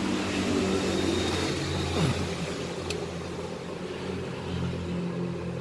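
Motor vehicle engine running, with a pitch that drops about two seconds in as it passes; a single sharp click near three seconds.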